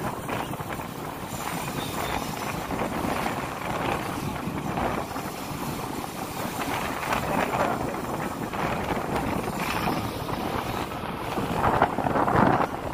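Motorcycle running at road speed, with wind buffeting the microphone; a little louder for a moment near the end.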